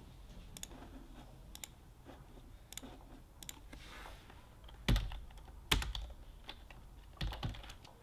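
Typing on a computer keyboard: irregular key clicks, with a few louder knocks about five, six and seven seconds in.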